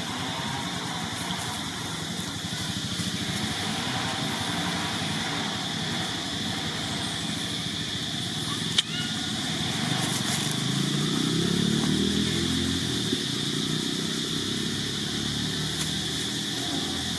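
An engine running, rising in pitch and growing louder about ten seconds in before easing off, over a steady high-pitched drone. One sharp click comes just before the middle.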